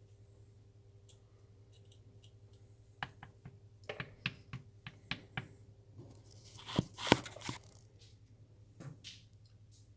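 Scattered light clicks and taps of kitchen utensils being handled, with a louder cluster of knocks about seven seconds in, over a faint steady hum.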